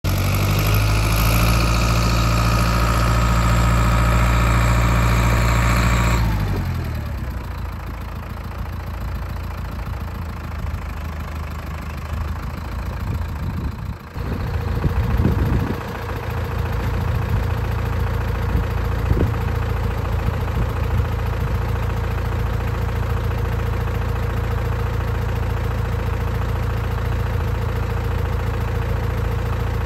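Case IH 845XL tractor's diesel engine running at raised revs, its pitch falling away about six seconds in. Then, from about halfway through, the engine idling steadily.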